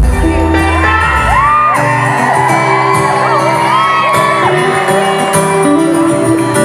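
Audience screaming and whooping over acoustic guitars that keep playing as one song ends and the next begins.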